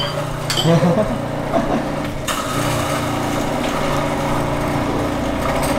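Electric coffee grinder running, a steady motor hum with a slight change in pitch about two seconds in.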